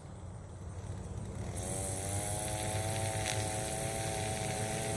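A motor vehicle's engine droning at a steady pitch, coming in about a second and a half in and growing slowly louder.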